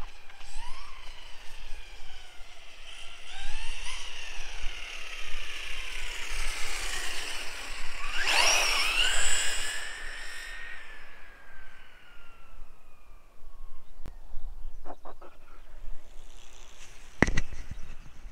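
Electric motor of a Reely Eraser RC car whining as it speeds up and slows along the tarmac, its pitch gliding up and down. Loudest about eight seconds in, where the whine rises sharply and then falls away as the car passes close. A sharp click near the end.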